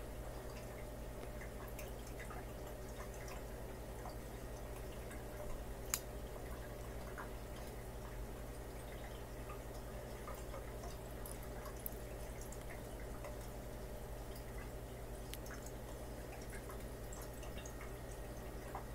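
Aquarium running: a steady pump hum with water dripping and trickling, scattered small clicks, and one sharp click about six seconds in.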